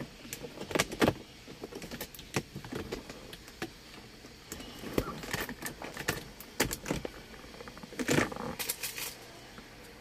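Plastic wood-grain shifter trim panel of a Toyota Corolla Altis being fitted back over the gear lever onto the centre console: scattered clicks, knocks and rattles of plastic, loudest about a second in and again in a quick cluster near the end.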